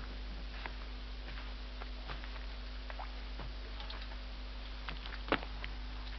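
Steady low electrical hum with scattered faint clicks and ticks, one louder click about five seconds in: the background noise and crackle of an old film soundtrack.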